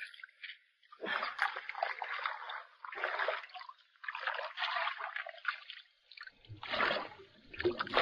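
Shallow water splashing and sloshing in irregular bursts as feet wade through it and a hand net is swept through it.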